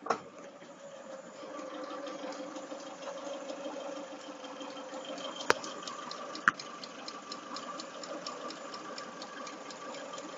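Chevrolet Lacetti idling with a fast, even knocking of about five a second, which the owner places in the manual gearbox; pressing the clutch or selecting a gear does not change it. Two sharp clicks sound about halfway through.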